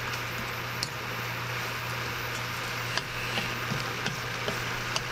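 Wooden spatula stirring enoki mushrooms in sauce in a nonstick frying pan, with several light knocks and scrapes against the pan over a steady low hum and hiss.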